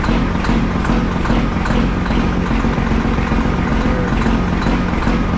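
Heavy engine idling steadily, with a light regular ticking about two to three times a second.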